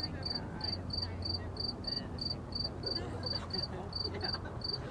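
A cricket chirping in a steady, even rhythm of short high chirps, about three a second, over a low, constant hum of distant freeway traffic.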